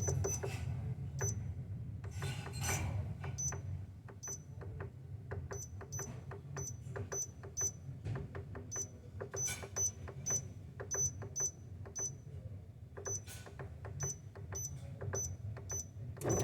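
Faint low hum with a string of small sharp ticks, a few a second, while a Hisense dehumidifier sits with its fan stopped, waiting for the compressor to start. Right at the end the sound rises suddenly as the compressor kicks on.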